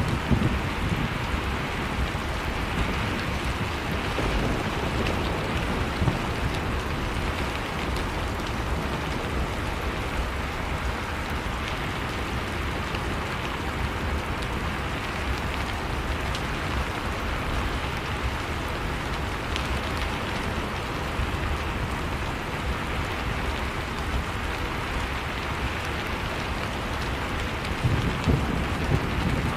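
Heavy rain falling steadily, with low rumbles of thunder just after the start and again near the end.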